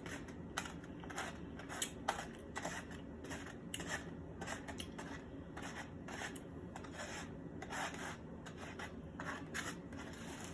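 Close-miked, irregular soft clicks, scrapes and rustles of food and utensils being handled at the plate, several a second.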